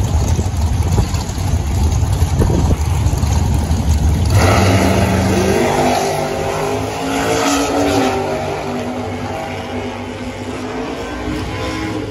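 Two drag cars rumble heavily at the starting line, then launch about four seconds in. Their engines rev hard, rising in pitch through the gears as they run away down the strip, and fade gradually.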